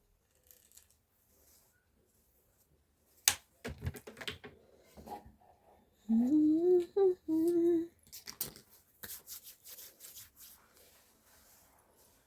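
A woman humming two short, rising phrases of a melody, with a sharp click a few seconds before and scattered small clicks and taps around it.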